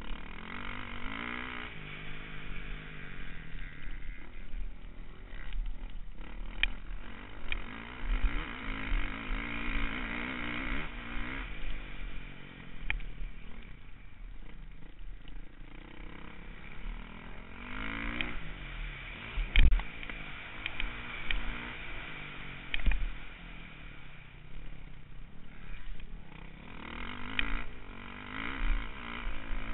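Dirt bike engine revving hard and dropping back over and over while riding, heard from a camera on the bike. There is a sharp knock about two-thirds of the way through.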